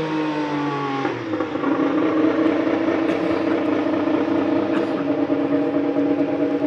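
Formula 1 car's 1.6-litre V6 turbo-hybrid engine running on track. Its note falls in pitch, then about a second in it changes abruptly to a louder note held at a steady pitch.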